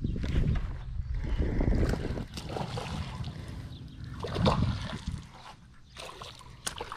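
Wind rumbling and handling noise on the microphone, with a hooked fish splashing at the water's surface in sharp bursts near the end.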